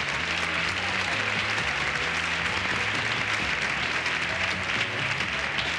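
Studio audience applauding steadily, with background music and its bass line underneath.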